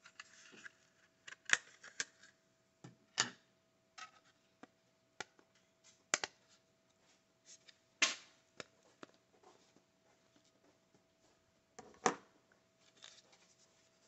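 Clear plastic clamshell packaging of two laptop memory modules being prised open by gloved hands: irregular crinkling and sharp plastic clicks and snaps, with a handful of louder snaps a few seconds apart.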